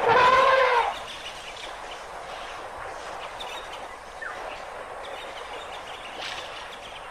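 An African elephant trumpets once, a loud call of under a second that rises and falls, then steady faint outdoor hiss.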